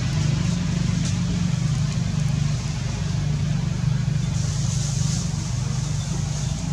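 An engine running steadily nearby, a low, even hum.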